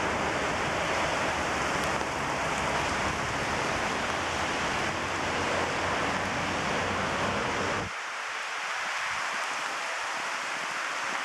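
Gusty wind and rain in a storm squall: a loud, steady rushing hiss, with wind buffeting the microphone until the low rumble drops away suddenly about eight seconds in, leaving a lighter hiss of rain and wind.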